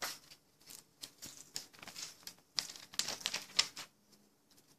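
Paper rustling and crackling as magazine pages are handled and turned: an irregular run of short crackles, busiest past the middle.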